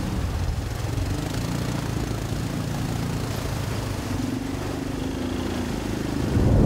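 All-terrain vehicle engine running while driving through mud, a steady drone whose pitch shifts a little with the throttle.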